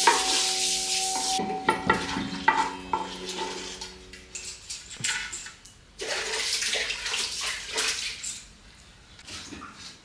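Cooking sounds: a hiss as a roti is pressed with a cloth on a hot iron tava, then a spoon scraping and scooping carrot halwa out of a pan, starting about six seconds in.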